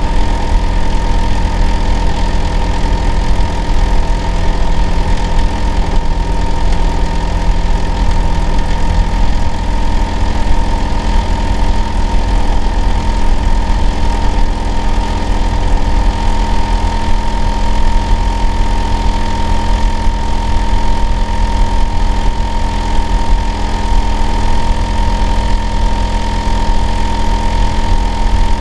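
Hitachi air-conditioner outdoor unit running steadily in winter, a constant low rumbling drone with a steady high-pitched whine over it. The uploader counts it as abnormal, noisy running.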